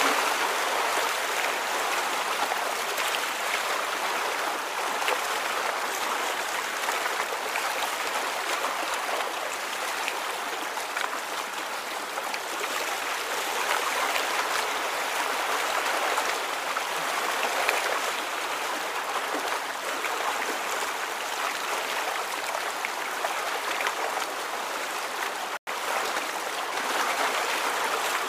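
Running water: a steady, even rush that swells and eases slightly, broken by a split-second dropout near the end.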